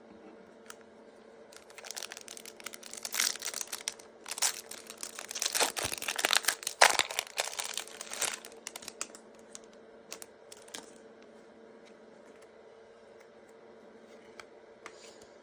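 Foil wrapper of a trading-card pack being torn open and crinkled: several seconds of tearing and crackling rustle, then only a few small clicks over a faint steady hum.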